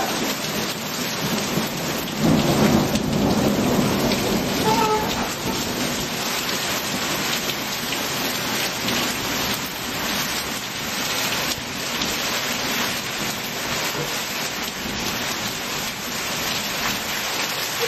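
Heavy rain falling steadily, with a low rumble of thunder about two seconds in that lasts a couple of seconds.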